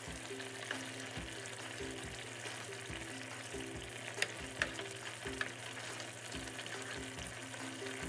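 A fish curry with tomatoes simmers and sizzles in a frying pan as a wooden spoon stirs it, knocking against the pan twice about halfway through. Soft background music with a steady beat plays underneath.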